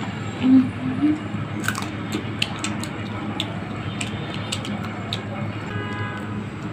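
Crisp crunching bites and wet chewing of raw green mango dipped in red chilli paste, with many sharp crackly clicks from about a second and a half in. A steady low hum runs underneath.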